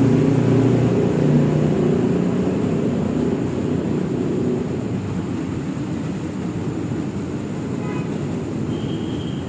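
Train running with a steady low rumble, its humming tones fading over the first few seconds.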